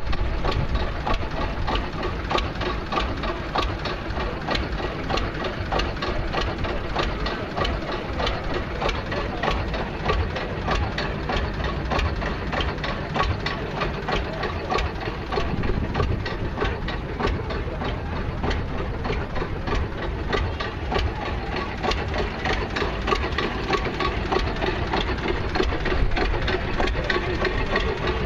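Old tractor engine running at a steady idle, with an even, rapid knocking beat.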